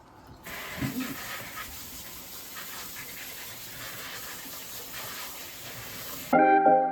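A steady hissing rush that starts abruptly and cuts off abruptly near the end, where music begins.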